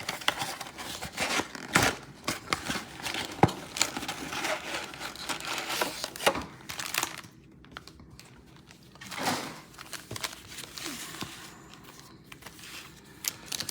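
Plastic wrapping crinkling and tearing as a sealed trading-card mega box is opened and its card packs handled: irregular crackles and rustles, busier in the first half, with quieter stretches later and one louder rustle about nine seconds in.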